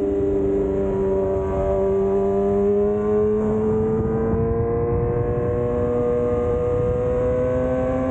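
Yamaha R6's inline-four engine running under way, its note dipping slightly at first and then rising steadily as it pulls, over a rough low rumble of wind on the microphone.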